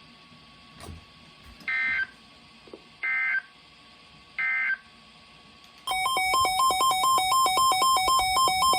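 Three short bursts of EAS/SAME digital data tones, each about a third of a second long and spaced about a second and a half apart: the end-of-message signal that closes an Emergency Alert System alert. About six seconds in, a fast electronic beeping pattern starts, switching rapidly between two tones.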